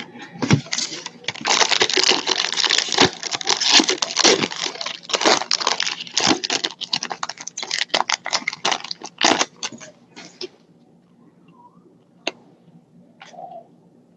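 Trading-card packaging being torn open and crinkled: a dense crackling rustle for several seconds, then a few scattered clicks and rustles.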